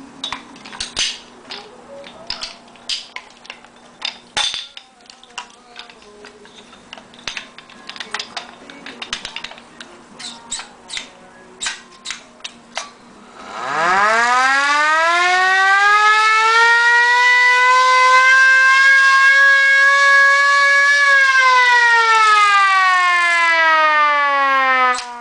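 Air-raid siren of the World War II type winding up from a low growl into a high wail, rising slowly, then winding down near the end. Before it starts, for about the first half, there are only scattered clicks and knocks over a faint steady hum.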